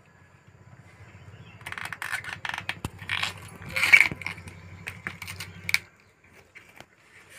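Banana flower being taken apart by hand: crisp snapping and rustling as a bract is peeled back and the florets are pulled off and dropped into a steel bowl. The clicks come in a dense run, loudest about four seconds in, over a faint low hum that stops near the end.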